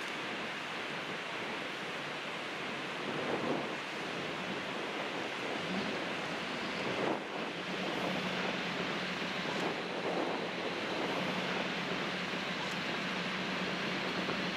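Steady rushing of wind and water on the deck of a fjord cruise boat, with a low steady hum coming in about six seconds in.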